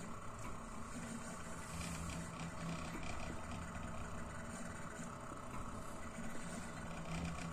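Desktop diode laser engraver running as it engraves: a steady motor hum from the machine that swells and fades every second or so as the laser head moves back and forth.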